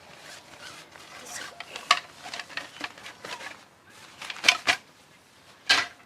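Exercise gear being handled: rustling broken by several sharp clicks and knocks, the loudest about halfway through and near the end.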